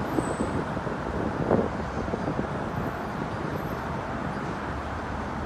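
Steady low rumble of distant road traffic, with a few brief knocks in the first couple of seconds, the loudest about a second and a half in.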